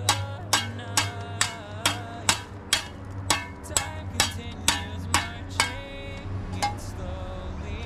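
Steel mason's trowel tapping a hollow concrete block down into its mortar bed: sharp clinks about two a second, stopping about five and a half seconds in. Music with a low steady hum plays underneath.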